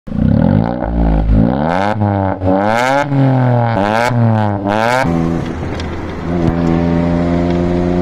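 Tata Altroz CNG's 1.2-litre three-cylinder petrol engine revved through an aftermarket valvetronic exhaust with twin tips, in about four quick blips that each climb and drop back. After about five seconds it settles into a steady engine drone at constant speed.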